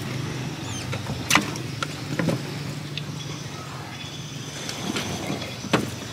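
Scattered clicks, taps and knocks as fish and a round wire-mesh fish trap are handled in a small wooden boat, over a steady low engine hum.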